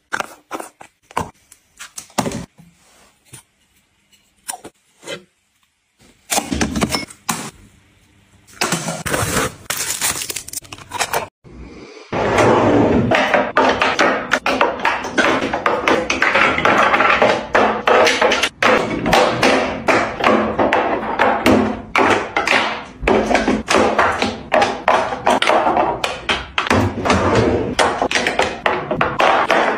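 Makeup bottles being set down one after another into a clear acrylic divider tray in a drawer: a dense, fast run of clacks and taps that starts about twelve seconds in. Before that come scattered clicks and a few short noisy bursts.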